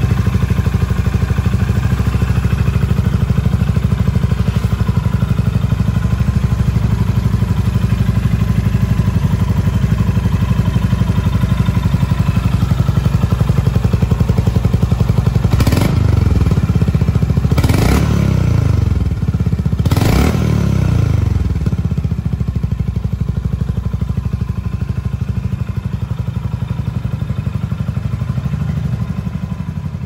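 Honda GB350S's air-cooled single-cylinder engine idling through a Moriwaki aftermarket silencer. About halfway through, the throttle is blipped three times in a row, each rev dropping back to idle.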